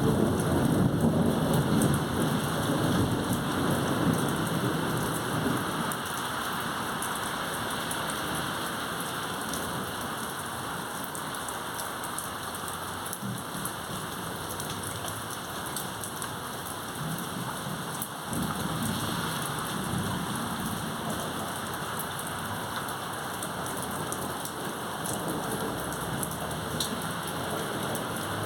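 Thunderstorm: steady rain with low rolls of thunder, strongest in the first few seconds and swelling again a little after two-thirds through.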